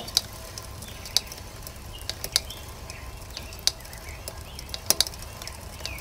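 Mountain bike rear wheel turning slowly under pedaling, with a sharp click roughly once a second, sometimes doubled, once per wheel revolution. The owner traces the click to the disc brake rotor, knocked out of true, striking a clip at the brake caliper as it comes around.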